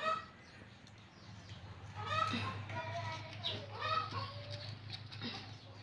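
Chickens clucking now and then, with indistinct voices, over a low steady hum.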